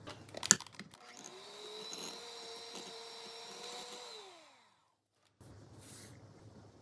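A few sharp knocks, then an electric hand mixer beating softened cubed butter in a glass bowl: the motor whirs up about a second in, runs steadily, and winds down with a falling pitch past the middle. Near the end comes a soft hiss as sugar is poured into the bowl.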